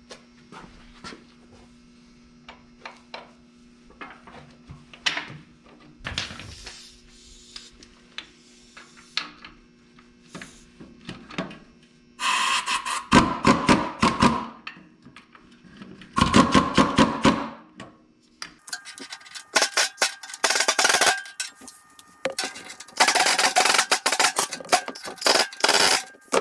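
Ratchet wrench tightening the mounting bolts of a Char-Lynn hydraulic pump on a tractor. First come scattered light metal clicks, then, from about twelve seconds in, four bursts of rapid ratcheting of two to three seconds each.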